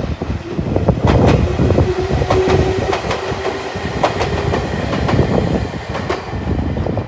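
An electric train passing close by: a loud, steady rumble with sharp, unevenly spaced clacks of its wheels over the rail joints.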